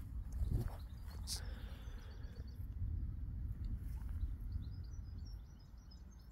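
Wind buffeting the phone's microphone in a low, uneven rumble, with small birds chirping in short high notes through the second half and a brief click just over a second in.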